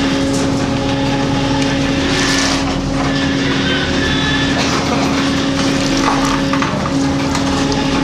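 A fishing boat's engine running steadily with a constant low hum, with faint knocks from the catch being handled on the metal deck.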